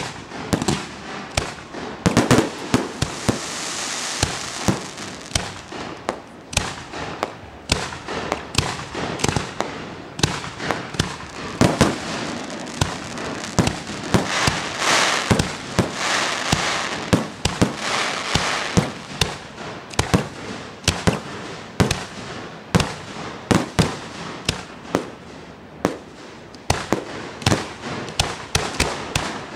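Aerial fireworks display: a rapid, irregular run of bangs as shells burst overhead, with stretches of hissing noise between them a few seconds in and again around the middle.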